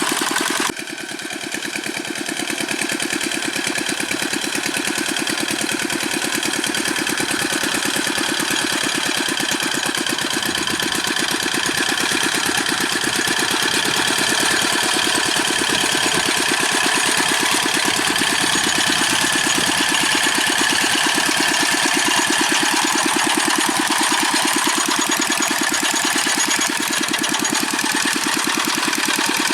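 Single-cylinder Dongfeng diesel engine of a Quick G600 hand tractor running steadily with a rapid, even chugging. It dips in loudness about a second in and builds back.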